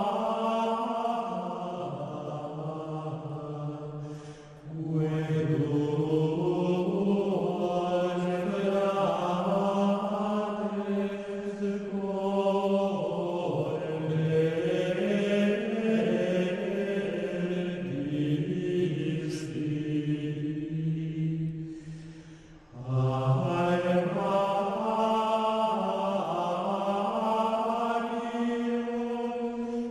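Background music of slow vocal chant: sung lines with long held notes, pausing briefly about four seconds in and again about twenty-two seconds in.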